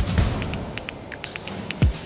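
Electronic background music with a beat: a deep thump at the start and another near the end, with quick ticks in between.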